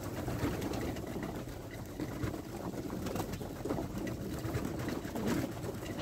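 A flock of homing pigeons cooing, several birds overlapping in a continuous low murmur.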